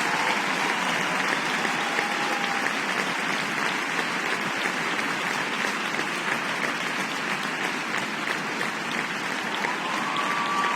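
Ice-rink audience applauding steadily, welcoming a figure skater onto the ice after his introduction.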